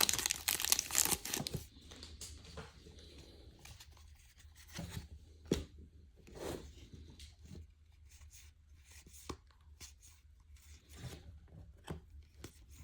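A trading card pack's wrapper being torn and crinkled for the first second and a half, then faint clicks and soft rustles of cards being handled and flipped.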